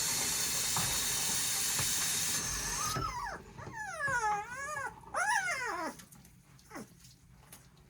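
Tap water running in a steady hiss that shuts off about two and a half seconds in, followed by a three-week-old North American Mastiff puppy whining in several high, wavering cries that rise and fall, then a few fainter whimpers.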